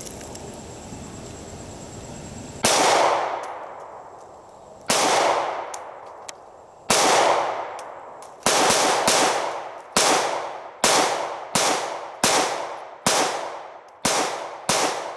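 About a dozen pistol shots from a compact 9mm Smith & Wesson Shield Plus, each with a ringing tail. The first three come about two seconds apart, then the pace picks up to roughly one shot a second.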